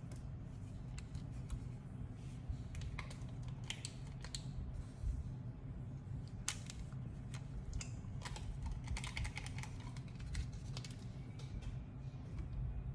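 Scattered light clicks and short crackling rustles of a product's packaging being handled and opened by hand, busiest in a stretch of crinkling about two thirds of the way in, over a steady low hum.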